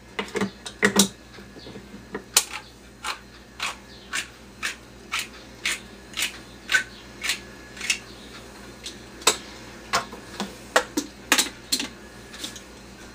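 Manual can opener being cranked around a tuna can: a steady run of sharp clicks, about two a second, that becomes more irregular in the last few seconds.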